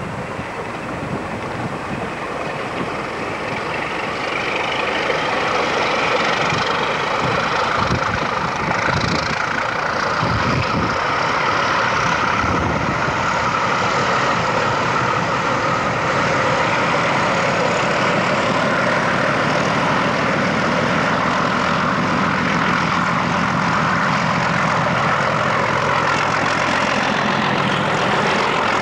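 Diesel locomotive hauling a train of tank wagons approaching and drawing alongside, its engine growing louder over the first several seconds and then holding steady as it comes close. Wind buffets the microphone early on.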